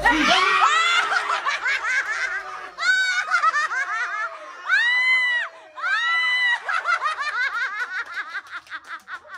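A group of people laughing hard, many voices at once in quick bursts, with three long high-pitched shrieks of laughter rising above the rest.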